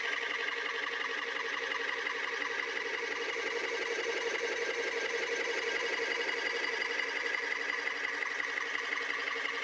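Royal Junior instant rice wet grinder running steadily under its electric motor, grinding soaked rice and water into batter; an even, unchanging machine whir.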